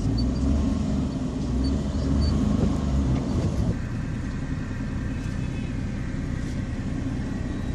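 Low, steady rumble of road traffic and vehicle engines.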